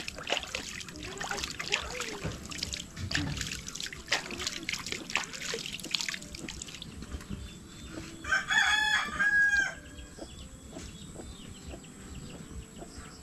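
A rooster crows once, a loud call of about a second and a half starting about eight seconds in. Before it, scattered small splashes and rustles come from the pond's edge.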